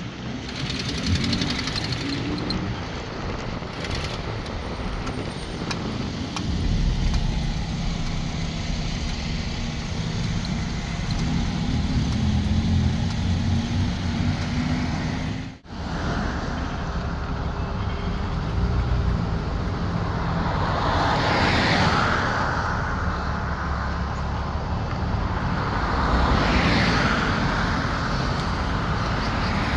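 Engine hum and road noise of a vehicle being driven. The engine note climbs slowly before a brief break about halfway, then the rushing noise swells louder twice.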